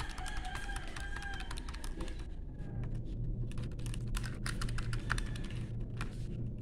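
Keys of a Casio fx-85MS scientific calculator being pressed in quick, irregular succession: a run of small clicks as symbols are keyed in.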